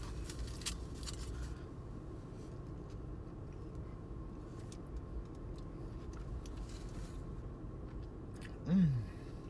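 Faint chewing and small clicks from someone eating a hot dog inside a car, over a steady low cabin hum. Near the end comes a short murmur from a voice, falling in pitch.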